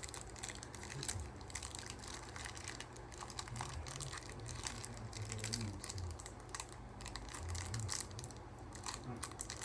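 Handling noise: many quick, irregular light clicks and taps with a little crinkling, as hands fumble with the camera and the cards.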